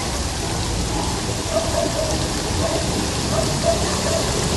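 Steady noise of rain and floodwater washing through a flooded street.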